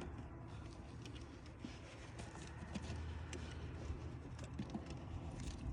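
Faint scattered small clicks and taps of a terminal screw and wires being handled on a winch solenoid, over a low steady background rumble.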